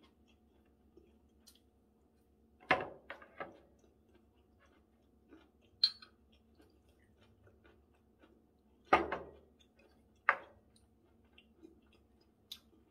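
Quiet chewing with a few knocks and clinks of tableware: a cluster of knocks about three seconds in, a sharp clink near six seconds as a glass soju bottle is tipped to a shot glass, and two louder knocks around nine and ten seconds as the bottle and glass go back down on the table.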